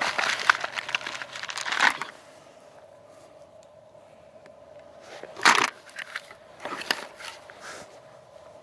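Crackling, rustling noise close to the microphone for about two seconds, then a quieter stretch broken by a few short clacks.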